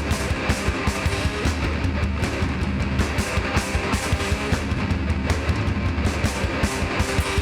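Heavy band playing live: distorted electric guitars, bass and a drum kit keeping a fast, steady beat.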